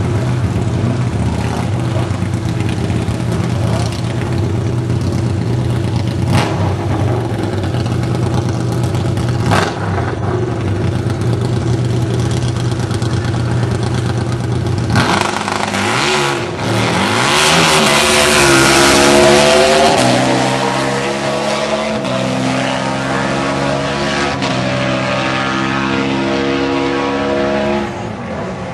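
Harley-Davidson Destroyer drag bike and a car idling at a drag-strip starting line, with two sharp cracks early on. About halfway through both launch with a loud surge, the engine pitch sweeping upward over several seconds as they accelerate away down the track.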